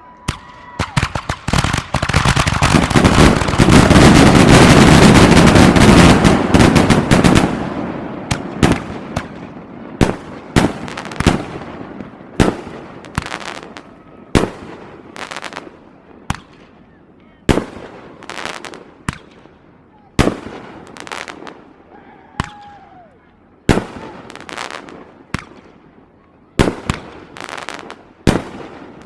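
Aerial fireworks show: a dense barrage of rapid bangs and crackling, loudest a few seconds in, thins out about seven seconds in. After that come single sharp shell bursts about once a second, each with a short echoing tail.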